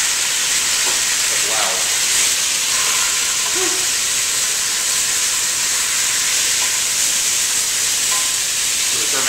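Ground beef sizzling in very hot vegetable oil in a stainless steel stock pot while it is stirred, a steady hiss as the meat starts to brown.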